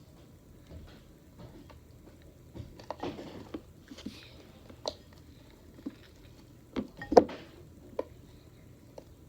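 Homemade glue slime being mixed and squished by hand, giving irregular wet squelches, clicks and little pops, the loudest about seven seconds in.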